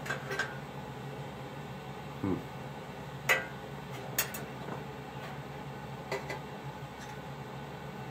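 Light metallic clicks and taps from a bent brass rod being handled and fitted against a copper model boat's hull. There are about eight, the loudest a little over three seconds in, over a steady low hum.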